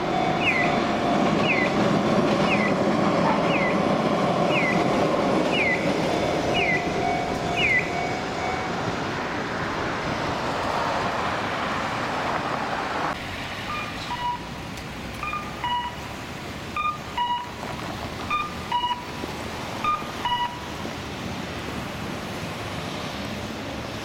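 Road traffic running through a city intersection, with a pedestrian crossing's electronic signal chirping, one short falling chirp about every second, for the first third. About halfway through, as the traffic quietens, a different electronic call of short two-note beeps repeats roughly once a second for several seconds.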